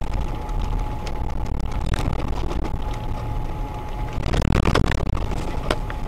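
Off-road vehicle driving a rutted dirt track, heard from inside the cab: a steady low engine and drivetrain rumble with scattered knocks and rattles, and a louder rush of noise about four seconds in.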